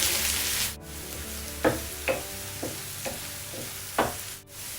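Pieces of ripe nendran banana frying in ghee in a pan, sizzling, with a spatula stirring and striking the pan about six times. The sizzle is loud at first and drops suddenly just before a second in.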